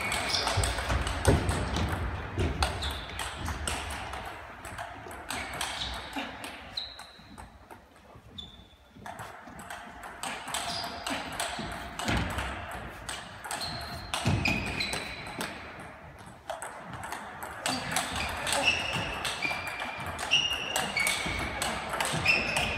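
Table tennis balls in fast rallies: quick sharp clicks of the ball off bats and tables, many with a short ringing ping, from several tables at once in a large hall. The hitting thins out briefly around a third of the way in.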